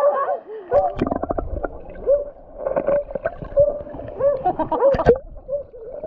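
Stream water gurgling and splashing around a camera dipping at and below the surface, with sharp splashes about a second in and again near five seconds.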